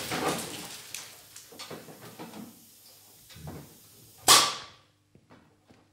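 The dying echo of a pneumatic air cannon shot, then scattered knocks and clatters as concrete projectile pieces and the struck car door settle. About four seconds in, a short, sharp hiss of air from the cannon's muzzle blows out a puff of dust.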